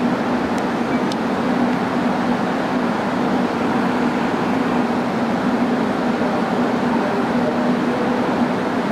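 Korail 319000-series electric train standing at the platform, its rooftop air conditioning and auxiliary equipment running: a steady hum with a constant low tone.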